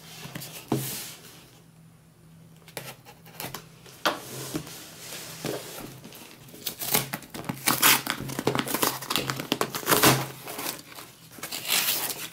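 Cardboard mailing box being torn open by hand: rasping rips of cardboard and paper with crinkling, sparse at first, then a quick run of louder tears from about four seconds in.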